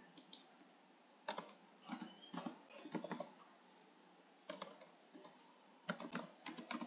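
Computer keyboard typing, faint, in short irregular clusters of keystrokes as a word is typed and partly deleted.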